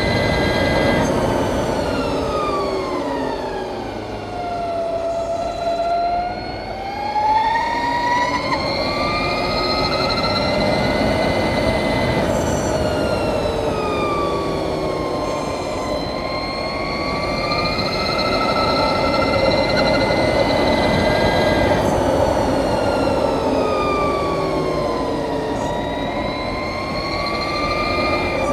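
Electric motor and gear drive of a 2020 Harley-Davidson LiveWire whining while riding at speed, over steady wind and road noise. The whine falls in pitch as the bike slows and rises again as it speeds up, three times over.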